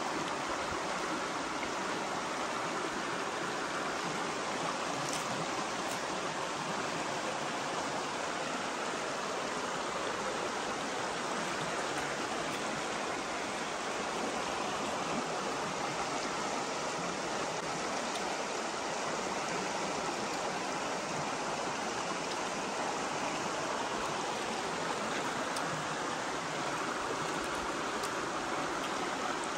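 Stream water running over rocks, a steady rushing with no change.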